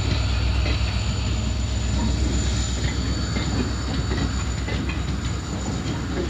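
Passenger train running on the rails, its wheels clicking over the rail joints above a steady low rumble.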